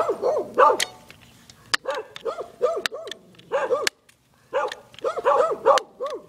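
A dog barking repeatedly in quick runs of several barks, with a short pause about four seconds in.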